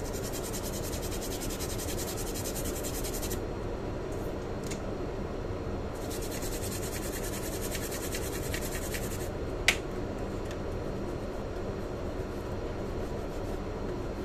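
A thinner-soaked cotton swab scrubbing flux off a laptop motherboard: two stretches of fine, rapid scratching, the first at the start and the second from about six to nine seconds in. A sharp click sounds just after the second stretch, over a steady background hiss.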